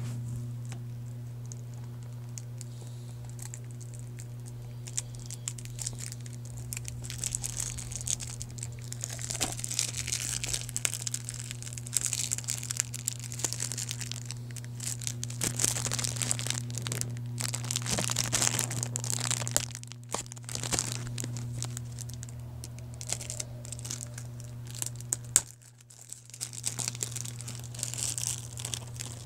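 Plastic shrink wrap on a DVD case crinkling and tearing as it is handled and pulled open, starting a few seconds in, with one sharp snap near the end. A steady low hum runs underneath.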